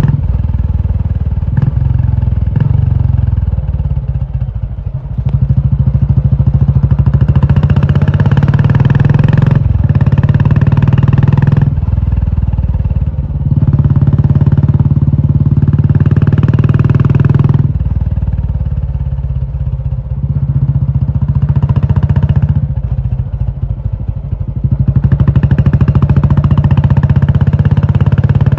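Royal Enfield Classic 350's single-cylinder engine running loud through an Indore aftermarket exhaust. The exhaust note swells and eases three times as the throttle is opened and closed.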